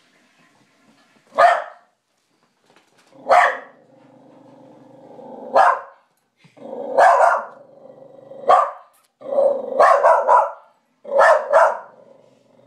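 A dog barking about ten times in short, sharp barks, some in quick runs of two or three, with low growling held between barks. He is barking and growling at his own reflection in a mirror, taking it for another dog.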